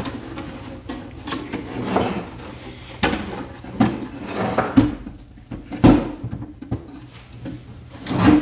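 Pioneer CT-1280WR cassette deck being turned over by hand on a wooden workbench: a string of knocks, scrapes and rubs of its case against the wood, with the sharpest thumps about six seconds in and near the end.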